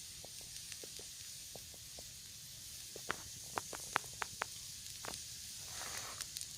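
Wood campfire crackling over a steady hiss, with a quick run of sharp pops about three to four and a half seconds in.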